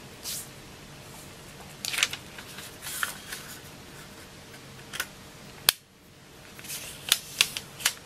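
A 15 cm square of origami paper handled and folded corner to corner into a triangle on a cutting mat: rustling and sliding paper with short creasing clicks, a sharp click about five and a half seconds in, and a quick run of clicks near the end.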